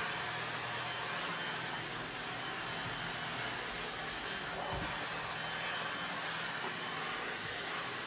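Tineco Pure One S11 cordless stick vacuum running with a steady, even noise as its floor head is pushed over a wooden floor; a short low bump about halfway through.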